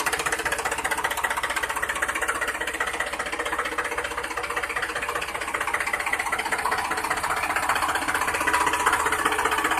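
Small electric motor and gear train of a homemade miniature tractor running steadily, a fast, even buzzing tick.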